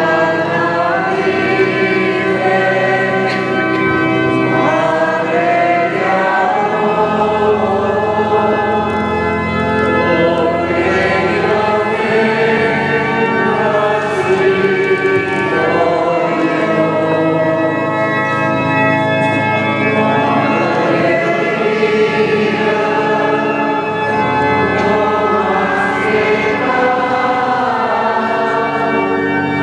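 A choir singing a hymn in slow, long-held chords inside a church.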